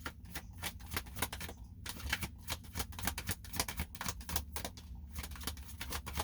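Tarot cards shuffled by hand: a rapid, irregular run of crisp card clicks and flicks, pausing briefly about two seconds in and again about five seconds in, over a low steady hum.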